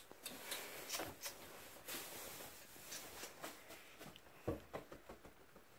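Quiet room with faint scattered rustles and light taps, and one louder soft thump about four and a half seconds in.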